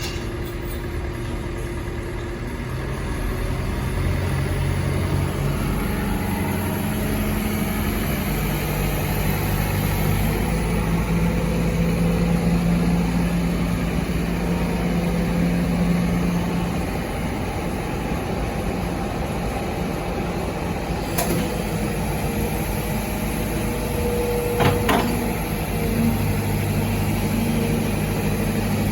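Heavy diesel engine running steadily, its pitch stepping up and down several times as the load changes. Two short sharp knocks come near the end.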